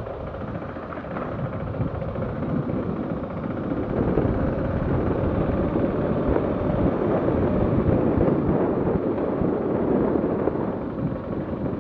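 Steady low rumble of a car on the move, engine and road noise, swelling about four seconds in and easing near the end.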